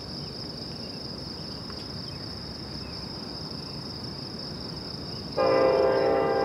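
Crickets chirping in a steady high-pitched chorus; about five seconds in, a Union Pacific freight locomotive's air horn sounds suddenly, a loud chord of several tones, and holds.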